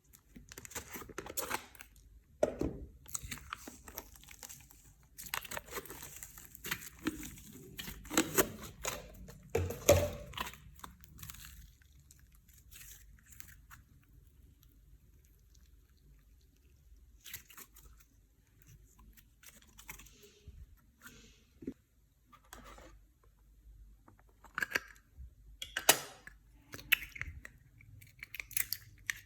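Clear slime being mixed and squished, with irregular sticky crackles, pops and clicks. They come thick and fast for roughly the first twelve seconds, then thin out to scattered clicks.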